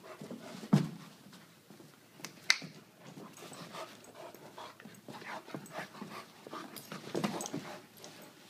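An Irish Wolfhound and an Aussie-doodle puppy play-wrestling: a busy, irregular run of short dog noises and scuffles, with a sharp thump a bit under a second in and a sharp click about two and a half seconds in.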